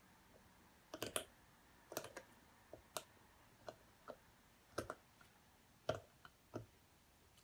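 A dog chewing and gnawing, giving about a dozen sharp, irregular clicks spread over several seconds.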